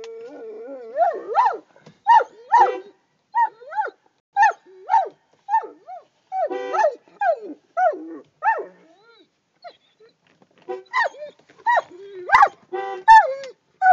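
Saint Bernard whining: a long wavering whine at the start, then a run of short rising-and-falling whines and yelps, one or two a second, with a brief pause about two-thirds of the way through.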